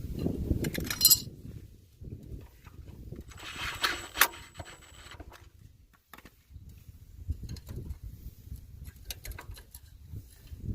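Scattered metallic clinks and knocks from parts and tools being handled during work under a car, with a sharp click about four seconds in.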